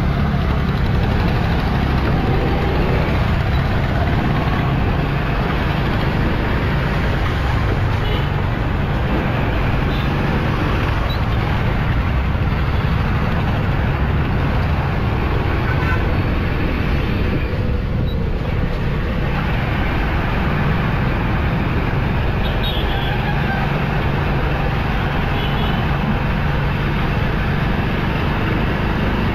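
Steady engine and road noise of a vehicle driving through town traffic, a continuous low rumble with no sharp events standing out.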